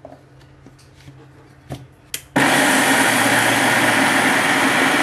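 Electric mixer grinder switching on abruptly about halfway through and running steadily at full speed, grinding soaked urad dal with a little water into batter. Before it starts there are a few light clicks.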